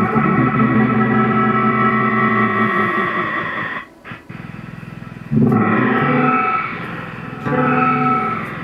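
Electric bass played through a Montreal Assembly Goodbye 24 digital effects pedal. Processed held notes cut out just before four seconds in, and new phrases come in about five and a half and again about seven and a half seconds in.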